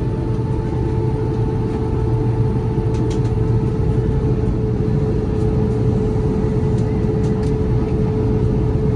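Steady rumble and rush of an Airbus A350-900's Rolls-Royce Trent XWB engines and airflow heard inside the cabin, with a steady mid-pitched whine over it.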